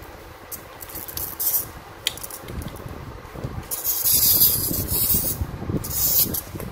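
Plastic parts of a snap-together model kit being handled and turned in the hands: bursts of rustling hiss with a light click.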